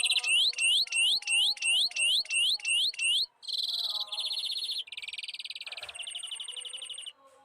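Greenfinch singing: a buzzy trill, then a run of about nine quick rising notes at roughly three a second, followed by two more fast trills.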